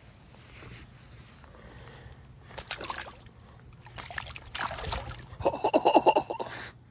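Shallow river water splashing and sloshing as a large smallmouth bass is lifted from a rubber landing net and let go, ending about a second from the end in a quick run of rapid splashes as the fish kicks away.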